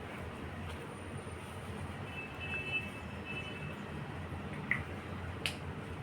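Steady low background hum, with two brief faint high squeaks around the middle and a couple of light taps near the end.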